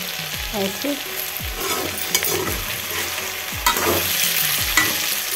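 Diced potatoes, onion and green chillies sizzling in hot oil in a metal kadhai while a metal spatula stirs them, scraping and clicking against the pan a few times.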